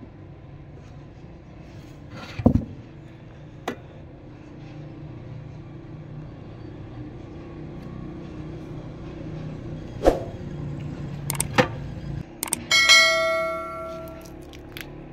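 Stainless-steel cooking pots and lids knocking a few times as they are handled and set down. Near the end one piece is struck and rings out like a bell for about a second. A steady low hum runs underneath.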